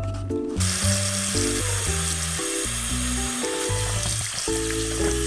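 Kitchen tap running into a stainless steel sink, starting about half a second in, with water splashing over salted cucumber slices in a metal bowl as they are rinsed by hand. Background music plays throughout.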